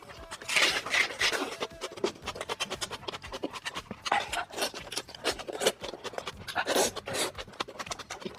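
Close-miked eating sounds: mouth clicks and wet smacking while chewing and tearing meat, with breathy bursts at about half a second in, around four seconds and around seven seconds.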